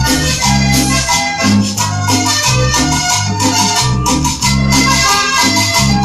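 Vallenato music playing from a vinyl record on a turntable: an instrumental passage of accordion melody over a bass line, with a steady rattling percussion rhythm and no singing.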